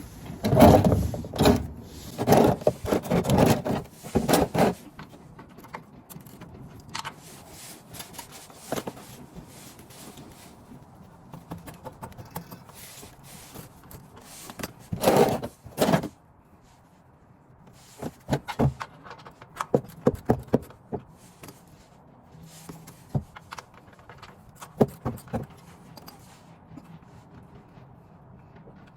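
A 9/16 ratchet and metal tools clicking, rattling and scraping in scattered bursts as the oil drain plug is worked loose. The loudest bursts come in the first few seconds and again midway.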